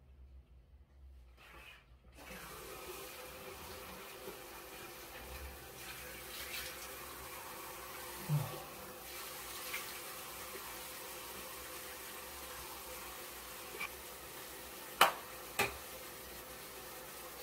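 Bathroom sink tap turned on about two seconds in and running steadily, with water splashing as hands scoop it onto a face. Two sharp, louder splashes come near the end.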